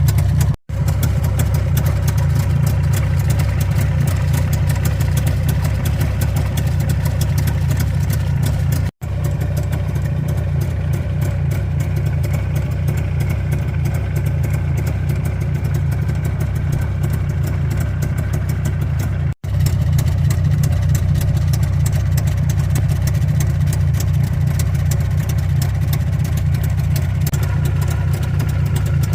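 Jawa 350 two-stroke twin motorcycle engine idling steadily. The sound drops out abruptly three times, at about half a second, nine seconds and nineteen seconds in, then carries on at the same idle.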